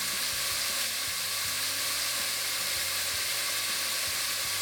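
Diced onion, red bell pepper, jalapeño and celery sautéing in hot olive oil, a steady even sizzle, with a few faint knocks from the pan.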